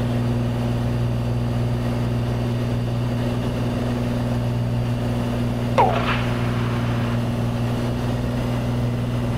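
Cessna 182's piston engine and propeller droning steadily in cruise-climb, heard inside the cabin. About six seconds in there is a brief chirp that falls in pitch.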